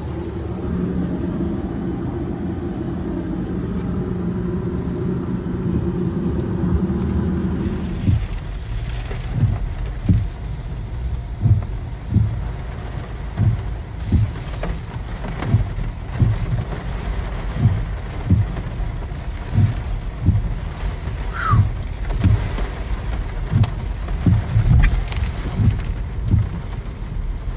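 A vehicle engine running steadily amid rain noise. About eight seconds in the sound changes to a rushing noise with a low thump roughly once a second.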